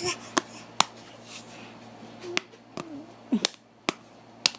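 A series of sharp clicks, about six, coming irregularly, with a couple of brief voice sounds between them, one falling in pitch, a little past the middle.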